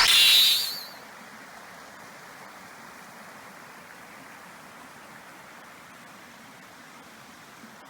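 A brief loud burst of noise right at the start, then the steady, even rushing of the Tamasudare waterfall.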